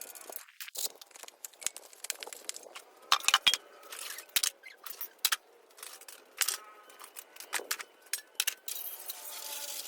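Metal tools and parts clinking and scraping in irregular sharp knocks, some ringing briefly, loudest a little over three seconds in.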